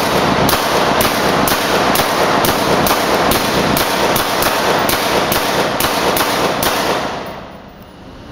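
Rapid semi-automatic rifle fire from a 5.56 mm AR-15 carbine with an 11.5-inch BCM upper and a QSM titanium suppressor: suppressed shots about two a second, echoing heavily in an indoor range. The firing stops near the end and the echo fades.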